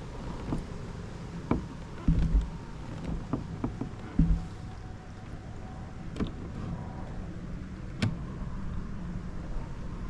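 Kayak moving on open water with a steady low wind rumble on the microphone and scattered knocks and clicks from the hull and gear, the heaviest thumps about two and four seconds in and a sharp click near the end.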